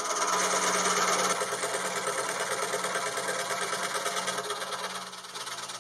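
DeWalt scroll saw running steadily, its reciprocating blade cutting through a piece of mahogany taped to a piece of maple.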